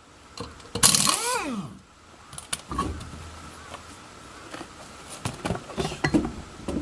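A power impact wrench on a wheel's lug nuts, run in one short burst about a second in: the motor spins up and winds down again within a second. After it come scattered metallic clanks and knocks from the nuts and tools.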